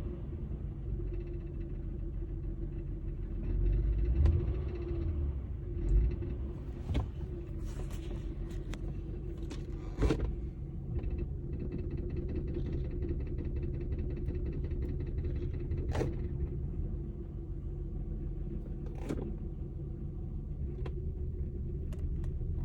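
2003 Honda Accord V6 engine running steadily with a low rumble. A few sharp clicks and faint rattling sound over it, the rattle the owner is tracing to the engine.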